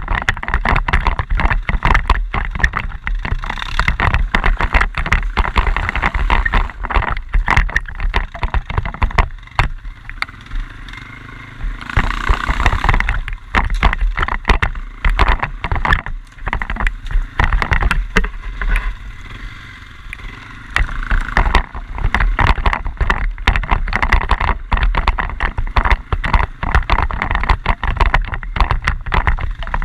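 Quad bike (ATV) being ridden over rough ground: a steady low rumble with constant knocks and jolts, easing to a quieter run twice for a few seconds.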